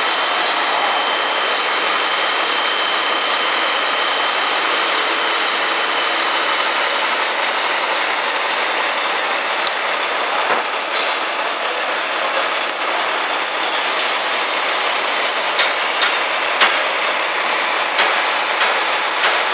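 Truck-mounted knuckle-boom crane working: a steady, loud mechanical running noise of the truck's engine driving the crane hydraulics, with a thin whine in the first few seconds. Several short metallic knocks come in the second half.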